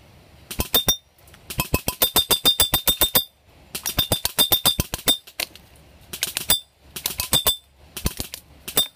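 Black Ops Tactical M4 Viper electric airsoft rifle firing BBs on full auto, about a dozen shots a second, in seven bursts: the longest about a second and a half, the last few short. Many shots carry a short high ring.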